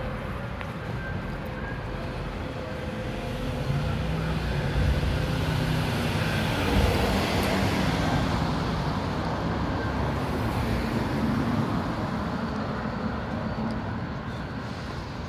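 Street traffic: the engine of a passing vehicle grows louder about four seconds in, stays up through the middle and fades near the end, over a steady hum of the road.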